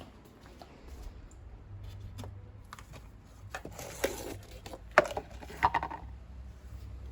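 Scattered knocks and clicks of objects being handled. The loudest is a sharp knock about five seconds in, followed by a short cluster of knocks, over a low steady hum.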